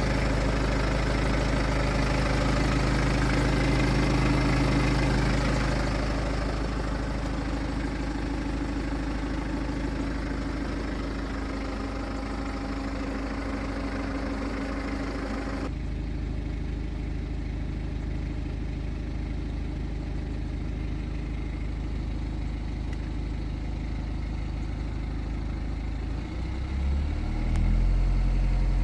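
BMW B47 four-cylinder turbodiesel engine idling, the engine whose timing chain the owner says is clearly noisy while warming up. About halfway through, much of the higher-pitched noise drops away suddenly, and near the end the engine note shifts and grows louder.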